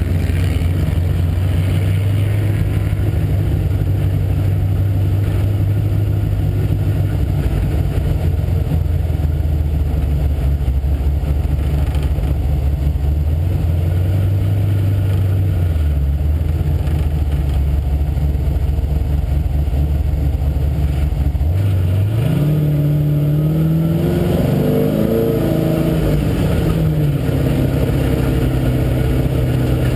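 Engine of an off-road vehicle driving across sand, heard from on board. It runs at a steady low drone, then in the last third revs up in rising steps before dropping back to a steady lower note near the end.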